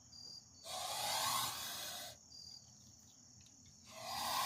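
Sebastopol goose hissing twice, each breathy hiss lasting about a second and a half, the second starting near the end. It is the hiss of an angry goose.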